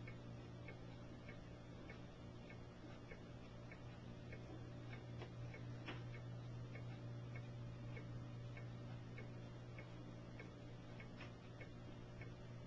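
Faint, regular ticking, about two to three clicks a second, over a steady low hum.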